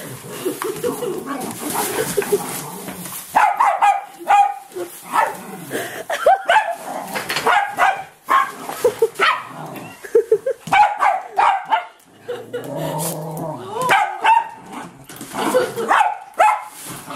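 Small dogs barking and yipping in many short, sharp bursts while they play on a beanbag dog bed.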